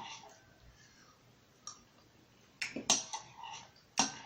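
Eating sounds at a table: a few short sharp clicks and taps, a faint one a little over a second in, a cluster around three seconds in, and a sharp one near the end.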